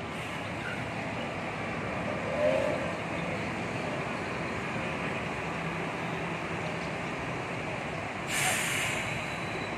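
Express coach's diesel engine running as the bus creeps along the terminal bays, with a short louder sound about two and a half seconds in. Near the end a sudden hiss of air from the coach's air brakes lasts under a second.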